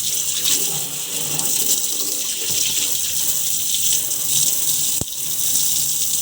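Water running steadily with a bright hiss, with one sharp click about five seconds in.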